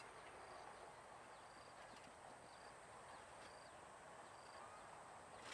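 Faint clip-clop of a horse's hooves walking, with a short high note repeating about once a second over a low hiss.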